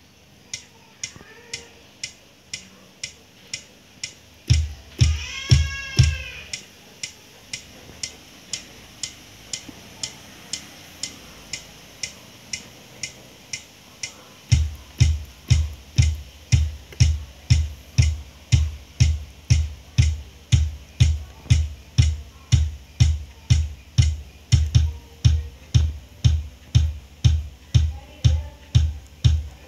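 Yamaha PSR-SX900 arranger keyboard playing a drum-machine pattern while a style's rhythm channel is recorded. A steady tick keeps time at about two beats a second. A few seconds in there are a few heavier hits with a short ringing tone, and from about halfway a bass drum lands on every beat.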